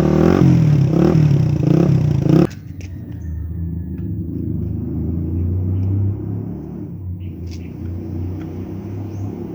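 Motorcycle engine through an Akrapovic 51 mm slip-on exhaust with a dB killer fitted, revved in several quick throttle blips. About two and a half seconds in it drops suddenly to a steady, low idle rumble.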